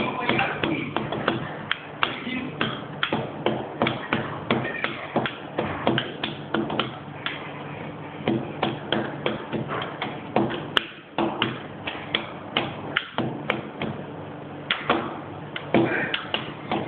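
Teppanyaki chef's metal utensils tapping and clanking against the steel griddle in quick, irregular strokes, a few each second, over a steady low hum.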